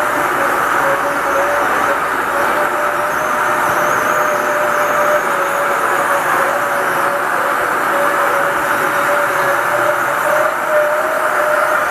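Steep rail-mounted lift in motion: a steady, slightly wavering squeal over a constant running noise.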